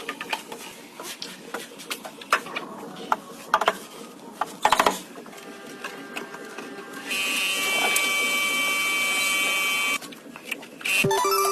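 Scattered metallic clicks and knocks of hand work, then a small electric power tool whirring steadily for about three seconds before cutting off; music starts near the end.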